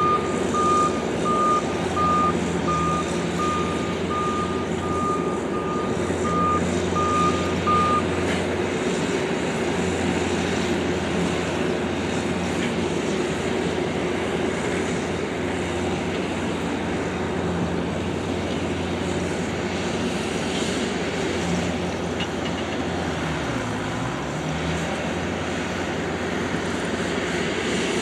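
John Deere skid steer's diesel engine running steadily as it levels fill dirt, its reversing alarm beeping about twice a second for the first eight seconds. A little over three quarters of the way through, the engine's pitch dips briefly and comes back up.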